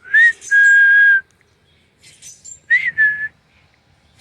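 A person whistling to call birds: two short whistled phrases, each a quick upward slide into a held note, the first longer.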